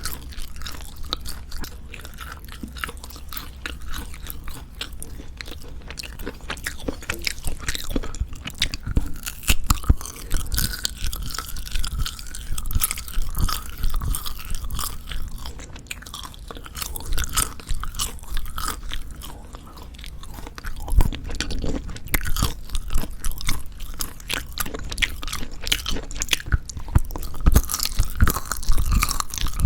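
Close-miked chewing of dried pork jerky: tearing bites and steady, irregular chewing with many small wet clicks and crackles.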